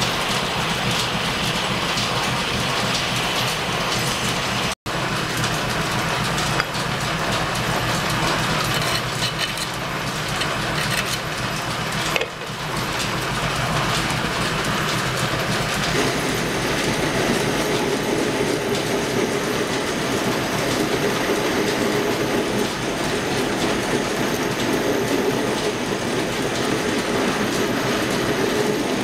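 Line-shaft-driven metal lathe running under power, with a steady mechanical clatter of flat belts, shafting and gears. There is a brief dropout about five seconds in, and the sound grows fuller from about sixteen seconds in.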